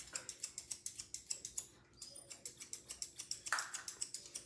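Grooming scissors snipping through a spaniel's coat: rapid, even snips, about six a second, with a short pause about two seconds in.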